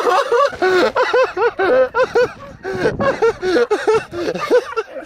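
A man laughing hard: a long run of quick 'ha' bursts, about five a second, with a short pause for breath about halfway through.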